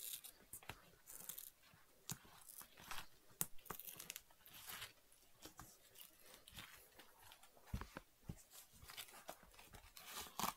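Faint, irregular tearing and crackling of compressed cardboard being pulled by hand out of the inside of a cut-open shoe, with scattered small clicks and scratchy rustles.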